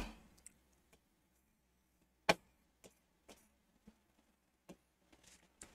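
Pen or marker tapping on a writing board: one sharp tap a little over two seconds in, then a few faint ticks, otherwise near silence.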